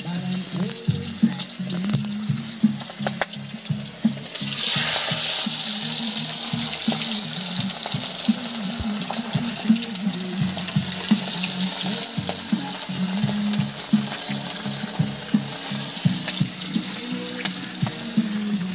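Food sizzling as it fries, a steady hiss that gets louder about four and a half seconds in, over background music with a low, rhythmic bass line.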